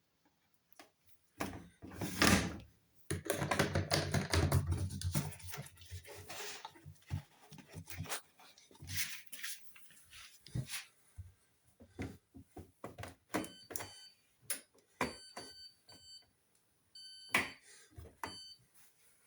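Hoover washing machine's control panel beeping several times, short electronic beeps as its buttons are pressed to set the programme and options, after a stretch of knocks and clatter from handling the machine.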